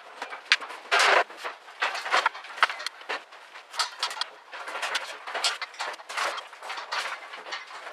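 Irregular scraping and clattering bursts of uneven loudness, as a welder is dragged and shifted across the shop floor.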